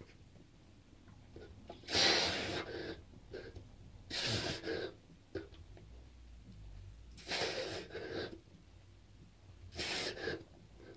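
A man's heavy, forceful breaths while doing push-ups: four loud puffs about two to three seconds apart.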